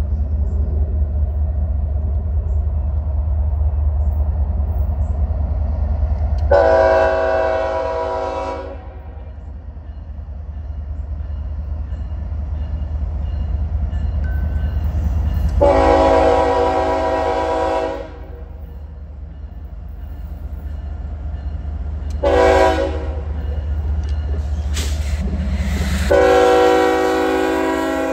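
Norfolk Southern freight train's diesel locomotive rumbling while its air horn blows the grade-crossing signal: two long blasts, a short one, then a final long one held to the end.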